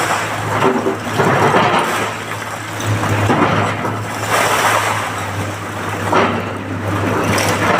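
Large excavator's diesel engine running with a steady low hum, under repeated surges of rough, rumbling noise about once a second.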